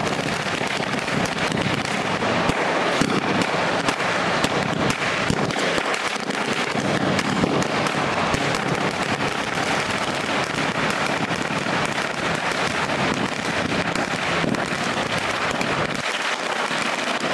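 A long string of firecrackers (a wala) going off in a rapid, unbroken chain of sharp cracks and bangs.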